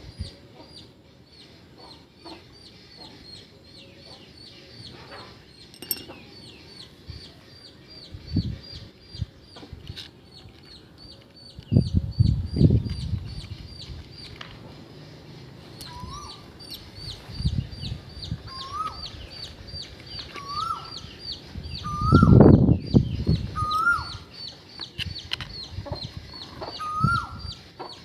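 Birds calling outdoors: a quick, high call repeats steadily, and from about halfway a lower, rising call repeats roughly once a second. Low rumbles come and go, loudest twice in the middle.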